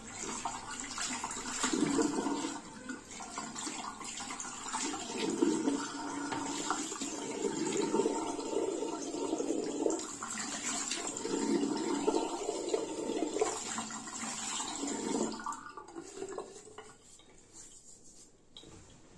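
Tap water running and splashing as a Frank Shaving brush with a mixed G4 synthetic and silvertip badger knot is rinsed of its lather under the stream. The splashing rises and falls unevenly, and the water stops near the end.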